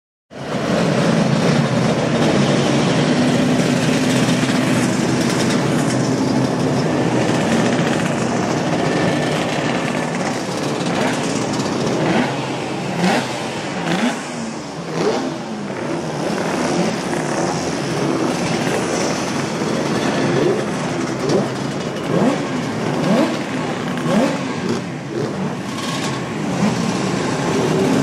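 Classic racing motorcycles running in a pit lane over a steady din of engines. From about ten seconds in, one bike after another revs up and accelerates away, each engine note rising in pitch.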